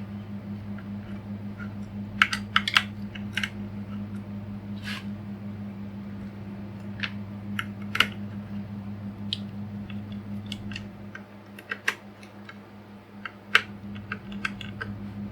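Scattered small clicks and taps of wires being handled and fitted into terminal connectors, with a few sharper clicks, over the steady low hum of a room fan.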